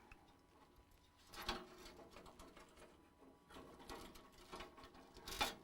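Scattered clicks, taps and rustles of cables and parts being handled inside a desktop PC case, with one louder knock about a second and a half in and a quick run of clicks near the end.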